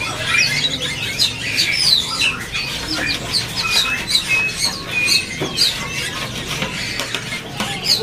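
Caged songbirds chirping and singing together: many short, quick notes and brief trills, overlapping without a break.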